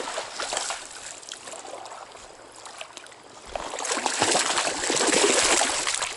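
Running stream water trickling and splashing, growing louder and fuller about halfway through.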